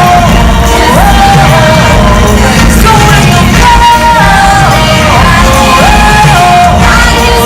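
Musical-theatre song: singers holding long notes that step up and down in pitch over a loud band backing.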